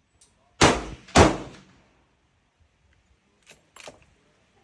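Two gunshots at a shooting range, about half a second apart, each with a short echoing tail, followed by two faint clicks near the end.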